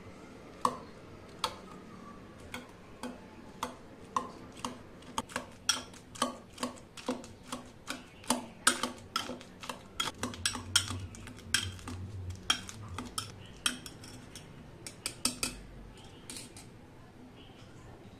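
Metal wire whisk mashing banana chunks in a glass mug, its wires clinking against the glass over and over. The taps start slowly, speed up to about three a second, then thin out and stop near the end.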